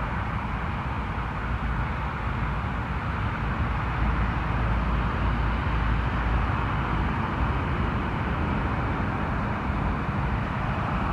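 The Pratt & Whitney geared turbofan engines of an Airbus A220-300 running as the jet taxies, making a steady jet hiss over a low rumble that swells slightly midway.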